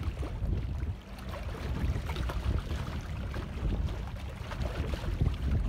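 Wind buffeting the microphone in a low, uneven rumble, over small waves lapping at the lake edge.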